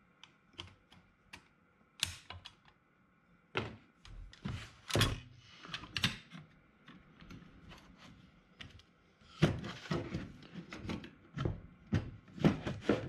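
Irregular clicks and knocks of a Stanley transitional hand plane being assembled and adjusted by hand: its metal blade parts clicking and its wooden body knocking against the bench. The clicks come in two busy clusters, about a third of the way in and again near the end.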